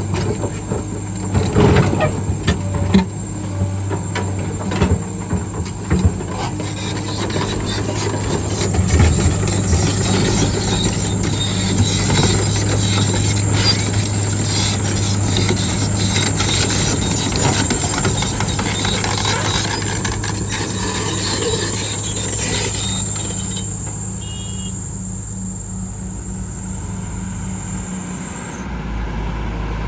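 Heavy diesel loading machine working with marble blocks: the engine runs steadily under a thin, high whine, with sharp knocks in the first few seconds. The sound eases off about three-quarters of the way through, and the engine note changes near the end.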